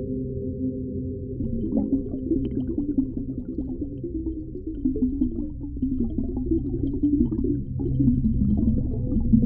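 Deep-ocean underwater ambience: a steady low rumble with a hum at first, giving way about a second in to a choppy, warbling, bubbly sound with scattered faint clicks.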